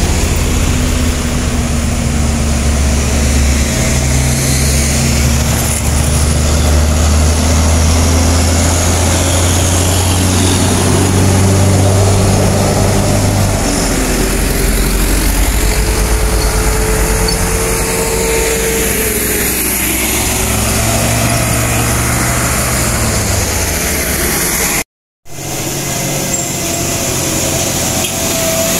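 Loud, steady drone of heavy diesel trucks' engines pulling up a steep hill, the pitch shifting a couple of times. A short break near the end, after which another truck engine drones.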